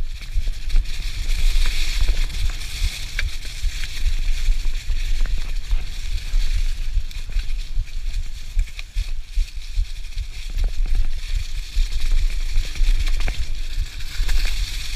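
Mountain bike rolling fast over a dry, leaf-covered dirt trail: the tyres crackle through fallen leaves, with scattered clicks and knocks from the bike, and wind rumbles over the camera's microphone.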